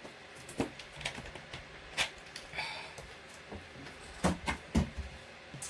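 Irregular light clicks and taps of small hard objects handled on a desk, with two louder knocks about four seconds in.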